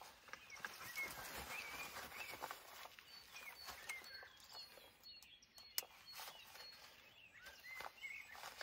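Birds chirping now and then against a faint outdoor hush, with the rustle of a running hydration vest being pulled on and its chest straps fastened, and one sharp click a little past halfway.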